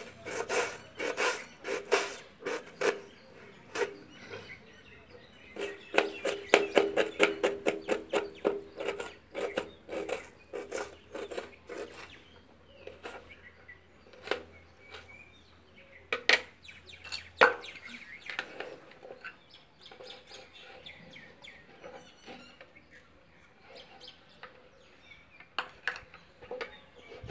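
Knife chopping red onion on a wooden board: fast, repeated taps for about the first twelve seconds, then thinning to scattered taps.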